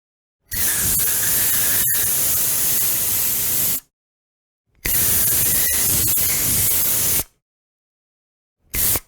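Aerosol spray can hissing: two long sprays of about three seconds each, then a short puff near the end.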